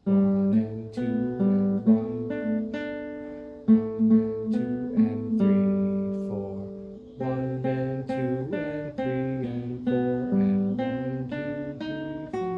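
Classical guitar playing a simple melody note by note, each plucked note ringing on, with a brief lull about seven seconds in.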